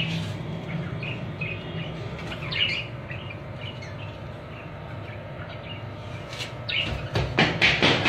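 Budgies chirping: short, scattered chirps over a steady low hum, then a quick run of louder, sharper sounds about four or five a second near the end.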